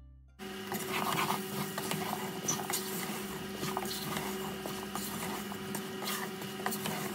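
Wooden spoon stirring chunks of raw green mango in a metal pot with spice paste, the pieces clacking and scraping against the pot with a steady low hum underneath. Faint background music stops about half a second in.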